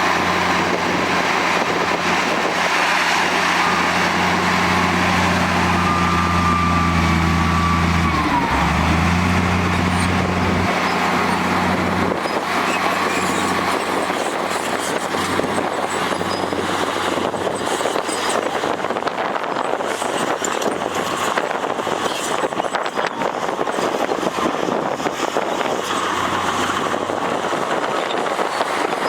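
Heavy diesel engine running steadily, its pitch dipping briefly about eight seconds in; after about eleven seconds the steady hum gives way to a rougher, even rumble of machinery.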